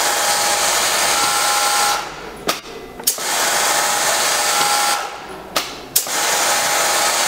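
Juki MO-6714 overlock (serger) running fast as it sews the edge of knit fabric. It goes in three runs of about two seconds each, with short stops and sharp clicks between them.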